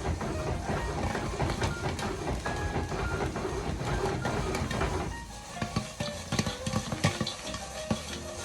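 A lidded pan of popcorn being shaken back and forth over a stovetop burner grate, its metal bottom scraping and rattling on the grate while kernels pop inside in hot oil and butter. About five seconds in, the scraping stops and only separate pops are left.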